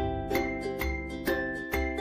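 Cheerful background music: plucked, ukulele-like notes in a steady rhythm over a bass line.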